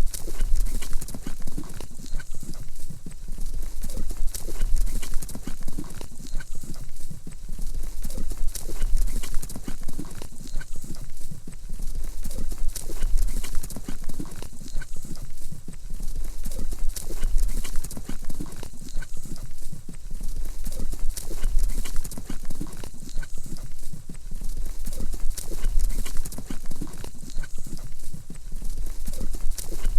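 A horse galloping, its hooves striking the ground in a steady, continuous rhythm.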